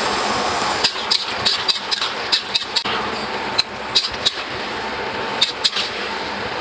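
A run of about a dozen irregular sharp knocks and clicks over a steady hiss, typical of kitchen work.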